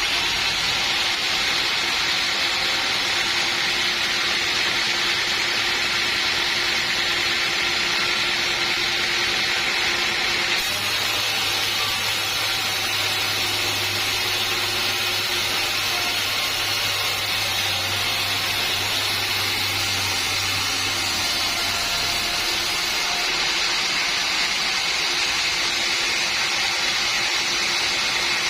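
Sawmill saw running steadily with a loud, even hiss-like whine. About eleven seconds in the sound shifts abruptly and a low hum joins, dropping out again about twelve seconds later.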